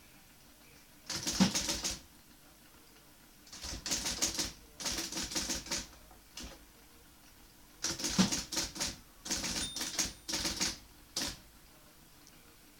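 A 1960 IBM Model C electric typewriter being typed on fast: three runs of rapid keystrokes, the longest near the end, with short pauses between.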